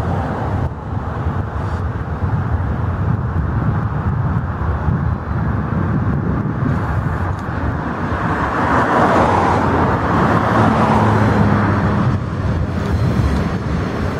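Two diesel-electric locomotives leading a container train as it approaches, their engines running with a steady rumble that grows somewhat louder about nine seconds in. A low steady engine tone comes through about ten seconds in.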